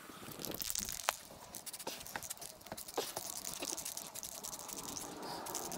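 Aerosol can of black spray paint hissing in short bursts along a taped surfboard rail, mixed with small clicks and rustling from masking tape and a cardboard shield.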